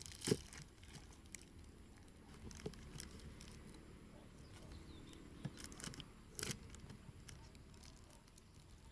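Faint rustling and crinkling of clear plastic wrapping being handled, with scattered light clicks and taps, the sharpest just after the start and about six and a half seconds in.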